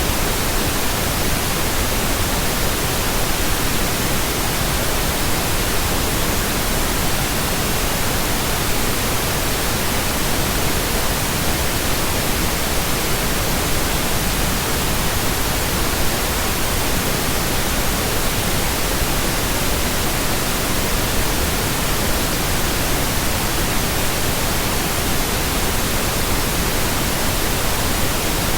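Steady generated pink noise: an even, unchanging hiss.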